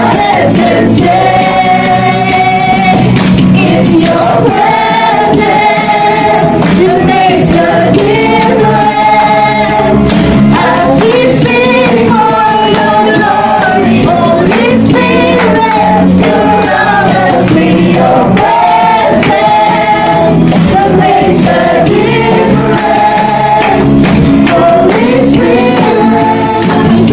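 A group of men and women singing a worship song together, with a steady beat running under the voices.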